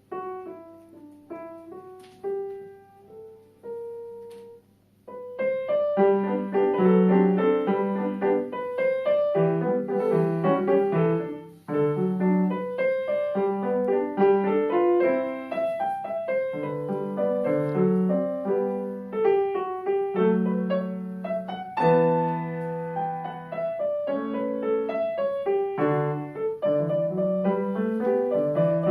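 Solo piano playing: a few slow, separate notes, a brief pause, then fast continuous runs and chords from about five seconds in.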